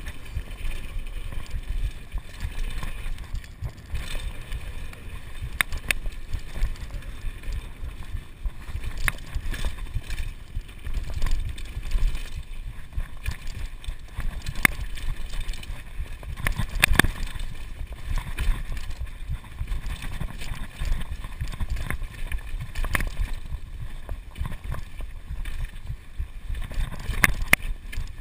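Kona Supreme Operator downhill mountain bike ridden fast down a dirt trail: a steady low rumble of the tyres on dirt with frequent sharp clacks and rattles from the bike over bumps, the loudest knock about 17 seconds in.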